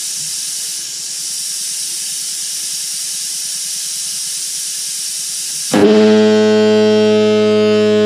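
Steady hiss of compressed air, then about six seconds in a Type F diaphone fog horn, built around 1918 by the Diaphone Signal Co., starts a loud, low, steady blast. The horn is running on tank air that is getting low.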